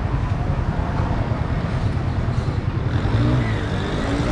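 Busy street ambience dominated by a steady, loud low rumble of traffic.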